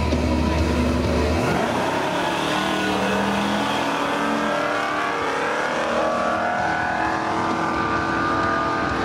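Two V8 muscle cars, a Ford Mustang and a Pontiac Firebird, launching off a drag-strip start line about a second and a half in and accelerating hard. The engine note rises, drops at a gear change about five seconds in, then rises again.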